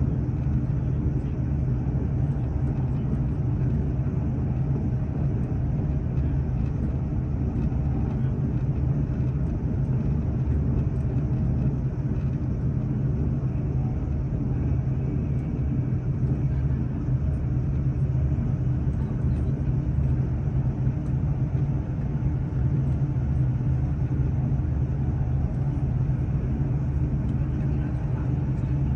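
Steady low rumble of a vehicle travelling at an even speed, heard from inside it.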